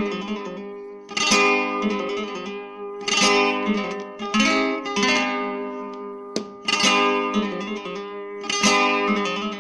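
Title music: an acoustic guitar strumming full chords, a new chord struck every second or two and left to ring out and fade.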